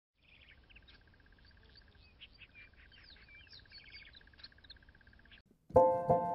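Faint birdsong: assorted chirps and whistles over a steady, rapid trill from one bird that pauses once and goes on. Near the end the birds cut out and piano music starts, much louder, with repeated chords.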